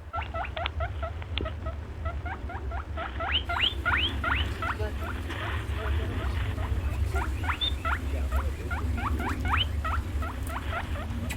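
Rabbits squeaking: many short, high squeaks that each sweep quickly upward, a couple to three a second, over a steady low rumble.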